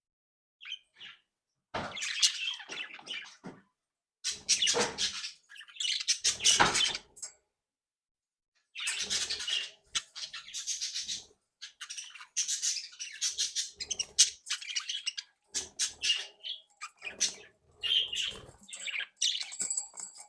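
Budgerigars chattering and warbling in short bursts, with brief pauses, then a longer run of chatter in the second half.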